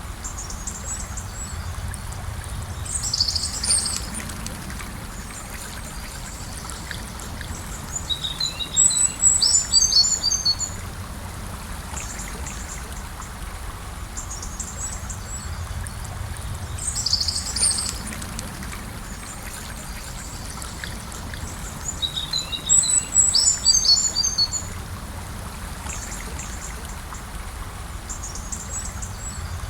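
A gentle river flowing steadily, with birds singing four short bursts of high chirps over it.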